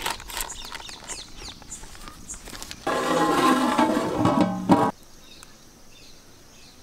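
Light paper crinkling and clicks with bird chirps, then a loud burst of music lasting about two seconds that starts and cuts off suddenly, followed by quieter outdoor background with a few birds chirping.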